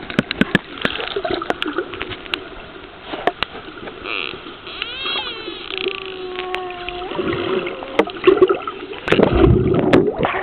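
Dolphins heard underwater: a scatter of sharp clicks, then whistles about halfway through, first a warbling one and then a long steadier one. Near the end comes a loud rush of air bubbles.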